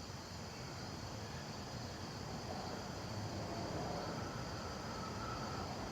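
Outdoor background: a steady low hiss with insects faintly chirring.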